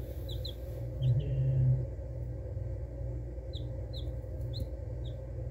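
Baby chicks peeping: scattered short, high, falling peeps, over a steady low hum. About a second in, the hum swells louder for under a second.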